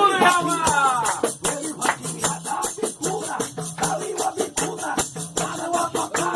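Lively worship music, with a tambourine shaken and struck on a steady beat and a voice singing over it.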